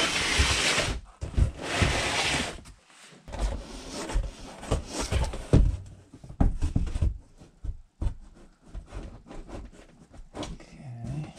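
Cardboard box template scraping against a car's underbody as it is pushed up into place, two long scrapes followed by a run of knocks and bumps.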